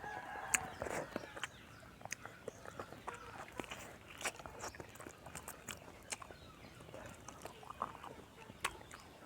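Eating sounds of chicken feet and papaya salad being chewed and sucked: scattered mouth clicks and wet smacks at an uneven pace, with a short pitched sound near the start.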